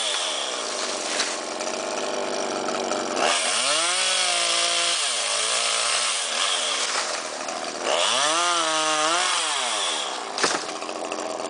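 Two-stroke chainsaw engine revving up to high speed and easing back down, twice: held at full throttle a few seconds in and again past the middle, dropping lower in between. Near the end it settles to a quieter running, with one sharp click.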